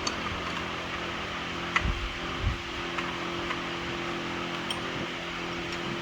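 A few light metal clicks and two short, dull knocks as a new serpentine belt tensioner is worked into its mounting base in a tight space. A steady background hum runs underneath.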